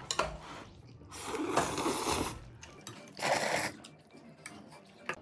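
Noodles slurped in two noisy pulls, a longer one of over a second and then a short one.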